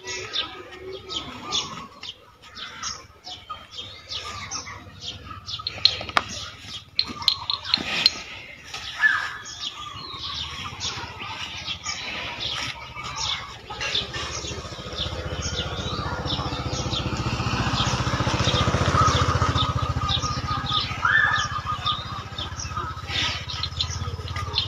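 Small birds chirping again and again, with a few sharp clicks around the middle. A low rumble swells from about halfway, peaks, then eases off near the end.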